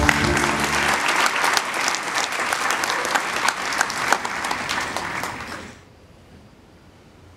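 Large audience applauding, dense clapping that fades out near the end. Music ends about a second in.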